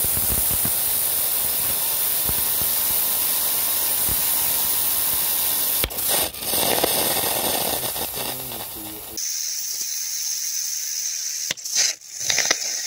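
Tiny oxyhydrogen rocket engine, about 3 cm long with a 1.5 mm throat and fed by gas from a water electrolysis chamber, burning with a loud, steady hiss that starts abruptly: stable combustion. The hiss changes character suddenly about six and nine seconds in, and a few sharp pops come near the end.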